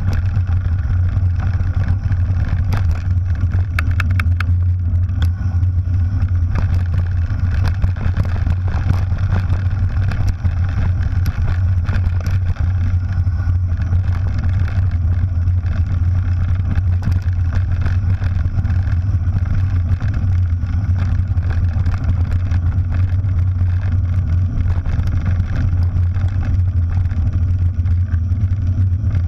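Loud, steady low rumble of wind buffeting a bike-mounted action camera and tyres rolling over a gravel track as a mountain bike descends, with scattered light rattles from the bike.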